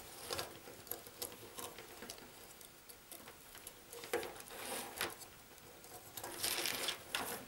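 Faint handling noise: small clicks, scratches and rustles of hands working plastic-sheathed telephone cable and a small plastic junction box, with louder scraping patches about four seconds in and near the end.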